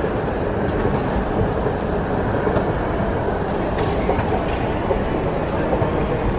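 Escalator running: a steady mechanical rumble with a few faint clicks.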